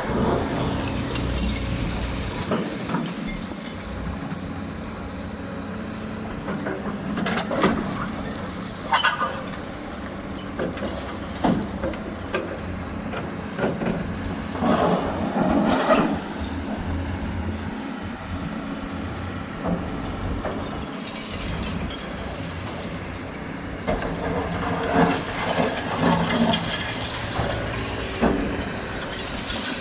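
Excavator engine running steadily while the machine works, with scattered metallic clanks and knocks, bunched around a quarter and a half of the way through and again near the end.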